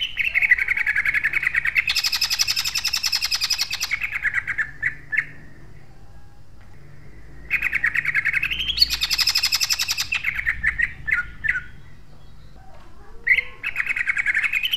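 Caged male green leafbird (cucak ijo) singing in rapid-fire, harsh, loud 'tembakan' bursts of tightly packed notes, the style prized in songbird contests. Three outbursts come with pauses of about two seconds between them.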